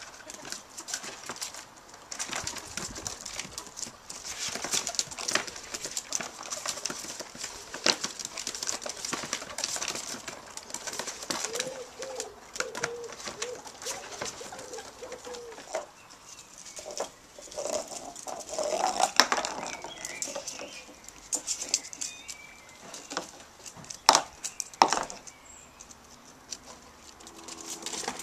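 Ferrets scrabbling in and around a plastic laundry basket on wooden decking: irregular scratching of claws and scuffing against the plastic, with the basket knocking, loudest in two sharp knocks about three-quarters of the way through.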